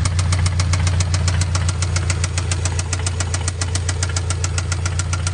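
Subaru flat-four boxer engine running with a loud, rapid, regular knock, about nine knocks a second over a steady low hum.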